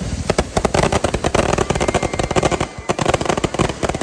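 Fireworks finale barrage: a dense, rapid run of sharp bangs and crackling reports, many a second, overlapping with no break.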